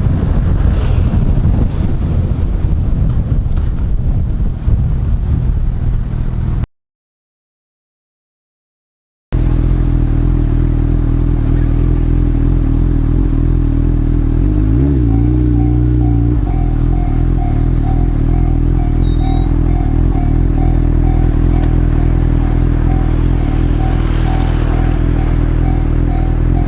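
Wind rushing over the microphone while riding. After a brief cutout, the Honda CB1000R's inline-four engine idles steadily, with one short blip of the throttle about halfway through.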